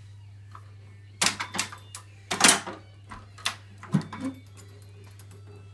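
A few sharp knocks and clatters of hard objects being handled, in two main clusters about a second in and about two and a half seconds in, with smaller taps later. A steady low hum runs beneath.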